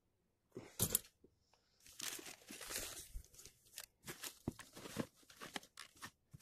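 Hands rummaging through clothes and plastic packaging in a suitcase: rustling and crinkling, with a sharp knock about a second in and scattered clicks and taps.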